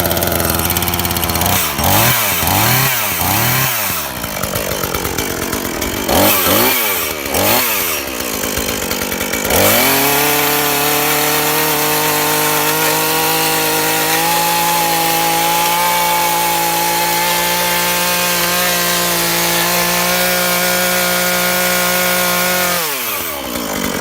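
Aldi Scheppach/Ferrex two-stroke petrol chainsaw warming up after a cold start: idling, then blipped up and down several times in quick revs, then held at high revs for about ten seconds before dropping back to idle near the end.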